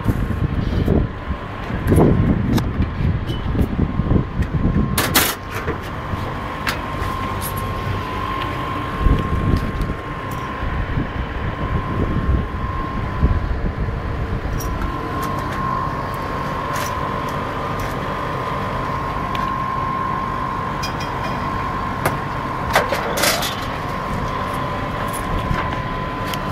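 Steady drone of rooftop machinery: a constant high whine over a low hum. Gusts rumble on the microphone in the first few seconds, and there are a couple of sharp knocks, one about five seconds in and one near the end.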